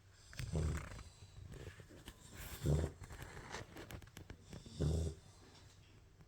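Labrador puppy snoring in its sleep: three short, low snores about two seconds apart.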